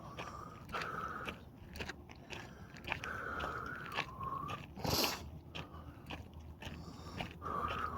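Footsteps crunching on a rocky dirt trail. A wavering whine comes and goes three times, and there is a short hissy burst about five seconds in.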